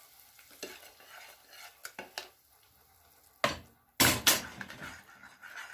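A spoon scraping and clinking against a pot of thick, hot melted chocolate mixture. Scattered light clicks come first, then a sharp knock and a louder clatter of kitchenware about three and a half to four seconds in.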